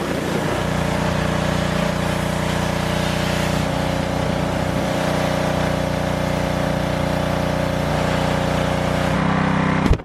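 Pressure washer running steadily, its motor droning under the hiss of the high-pressure spray; it cuts off suddenly at the end.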